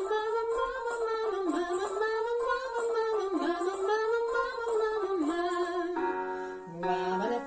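A woman singing a vocal warm-up exercise on the syllables 'dabadaba' and 'mamama', her voice rising and falling in repeated melodic arcs. About six seconds in it gives way to steady held tones.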